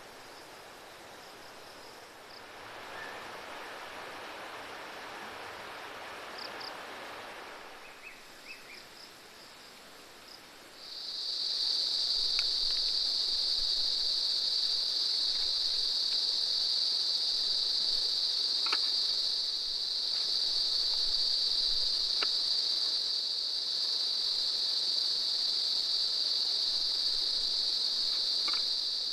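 An insect's loud, steady, high-pitched drone starts suddenly about a third of the way in and holds on, with a few faint clicks over it. Before it comes a few seconds of soft rushing noise and a few short high chirps.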